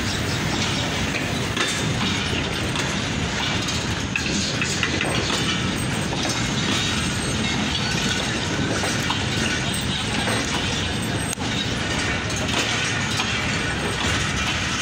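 Passenger coaches of a train rolling slowly past, their steel wheels clattering over the rail joints with a steady rumble.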